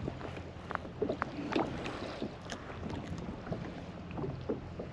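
Wind on the microphone and water lapping against a kayak hull, with scattered light clicks and taps from hands handling a jig head and soft-plastic lure.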